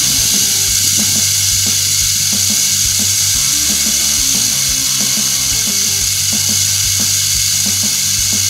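Rattlesnake rattling its tail, a loud continuous buzz that never pauses, with background music underneath.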